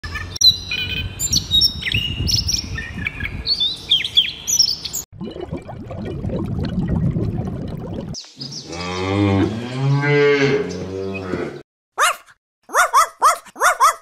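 A run of separate animal sounds: songbird chirps and song for about five seconds, then about three seconds of splashing water, then one long cow moo that rises and falls in pitch, and near the end a few short, high, falling yips.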